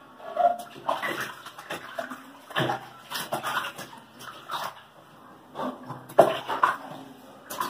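Water splashing in a plastic baby bathtub as a two-month-old baby is washed, with short whimpering cries from the baby coming in irregular bursts.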